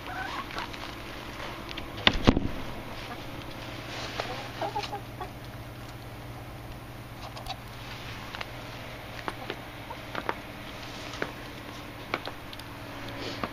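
Backyard hens clucking, with a single loud bang about two seconds in as the lid of the chicken run is shut.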